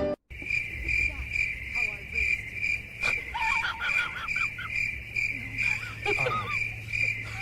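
An insect chirping steadily, a high, evenly pulsed chirp about twice a second, over a low hum, with a few short wavering calls near the middle.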